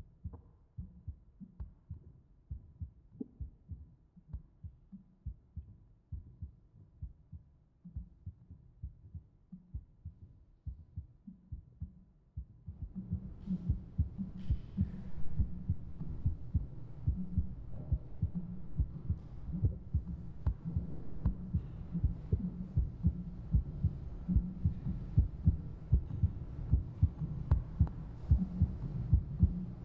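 Recorded heartbeat played back as a sound artwork: a steady rhythm of low thumps. About thirteen seconds in, a second, denser layer of beats joins and the sound gets louder, with a faint hiss over it.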